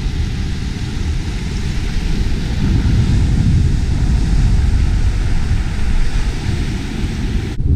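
Surf washing up the beach as a steady hiss of foam and small breaking waves, under a low rumble of wind buffeting the camera microphone.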